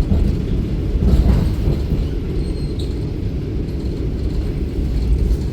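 Suburban electric train carriage running, with a low, steady rumble from its wheels and running gear heard from inside the car.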